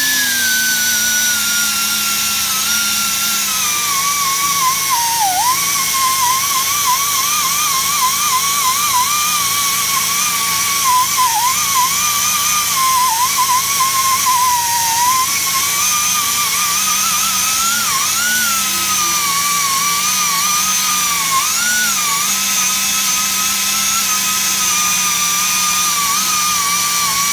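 Small right-angle grinder spinning a 2-inch Superbrade surface-conditioning disc against a plastic part, scrubbing off rust and sealant residue. It makes a high whine over a steady hiss. The whine falls in pitch over the first few seconds as the disc is pressed into the work, then wavers and dips as the load changes.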